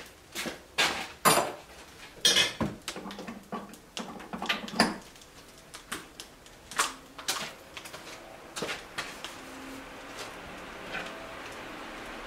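A busy run of sharp knocks, clatter and footsteps on a wooden floor as things are handled, thinning out after about five seconds into a few heavy clunks as firewood goes into a wood stove. Under the clunks there is a steady faint hiss that grows slowly louder.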